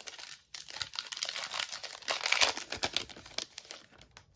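Foil wrapper of an NBA Hoops trading-card pack crinkling and tearing as it is opened by hand. The crackle dies away about three and a half seconds in as the cards come out.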